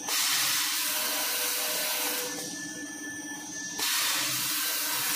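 Jumbo-roll toilet paper log saw cutting machine running with a steady hum, and two loud hissing rushes of about two seconds each. One starts suddenly at the start and the other about four seconds in, as the machine cycles.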